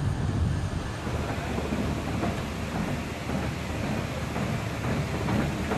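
Steady low engine rumble under a broad hiss, with no distinct events.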